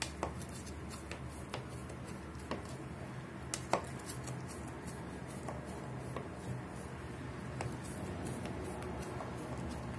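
Kitchen knife slicing through raw rolled börek dough in a metal baking pan: scattered light clicks and taps as the blade meets the pan, the loudest a quick pair a little under four seconds in, over a steady low hum.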